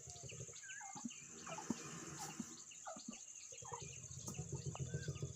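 Faint outdoor ambience of many short chirping bird calls over a steady high-pitched insect drone, with a low steady hum underneath.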